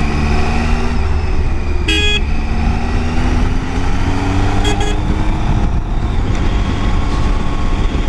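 BMW boxer-twin motorcycle riding uphill, its engine note rising slowly for a few seconds under heavy wind rumble. A horn toots briefly about two seconds in, with a fainter toot a few seconds later.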